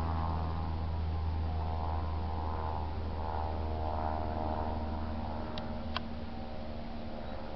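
Cessna 172K Skyhawk's four-cylinder Lycoming piston engine and propeller making a steady low drone as the plane passes overhead, slowly fading as it flies away. Two brief high ticks come near the end.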